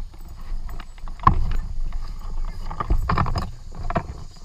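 Irregular knocks, bumps and scraping on a kayak's hull and deck as a small dog is lifted in and settled aboard, with a sharp thump a little over a second in and a cluster of knocks around three seconds.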